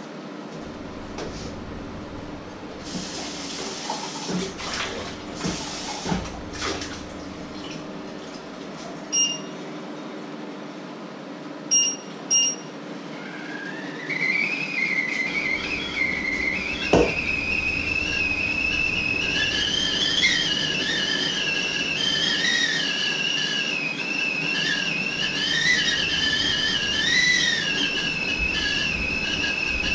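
Stovetop whistling kettle coming to the boil: from about halfway through, its whistle rises in pitch and then holds as a steady, wavering two-tone whistle. Earlier there are a few seconds of hissing noise and three short electronic beeps.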